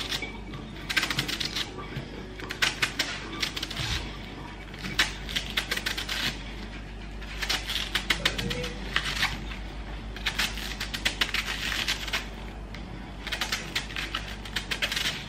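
Kitchen knife shaving thin slices off a hand-held wedge of raw cabbage: quick, crisp crunching cuts in about six runs of rapid strokes with short pauses between them.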